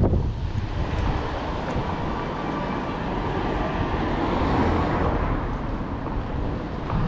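A motor vehicle passing on a city street, its tyre and engine noise swelling to a peak about four and a half seconds in and then fading, over steady street noise.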